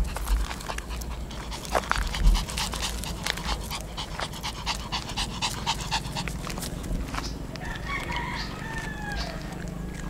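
Small Shih Tzu panting in quick, rhythmic breaths while it walks. Near the end a rooster crows.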